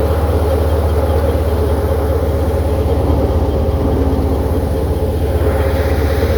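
A tractor's diesel engine running steadily at an even speed.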